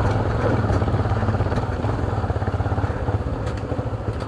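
Motorcycle engine running steadily under way, its rapid firing pulses going on without a break.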